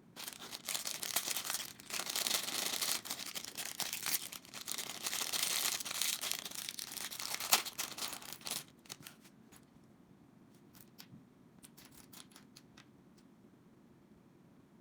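Plastic packaging being torn open and crinkled, dense and loud for about eight and a half seconds with one sharp snap near the end of it. Then it drops away to scattered light clicks, like small plastic building bricks being handled.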